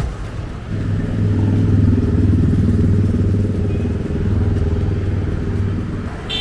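Street traffic: a motor vehicle engine running close by, a steady low hum that comes in about a second in and eases near the end.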